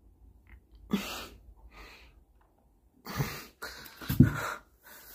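A man puffing and grunting with effort as he does push-ups, forcing out short breaths. The breaths come louder and closer together in the second half.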